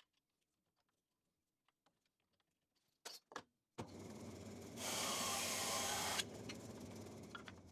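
A DoAll bandsaw: a couple of knocks of a wooden board set down on the cast table about three seconds in, then the saw runs and its blade rips through the wood for about a second and a half, louder, before dropping back to its steady running hum.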